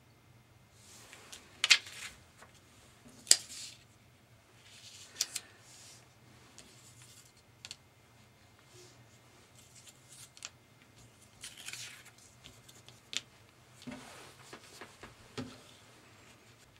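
Hands handling a sheet of vegetable-tanned leather, paper cards and a matboard template on a cutting mat: scattered rustles, scrapes and sharp clicks. The two loudest clicks come in the first few seconds, and there is a short scratching near the end as the template is traced onto the leather.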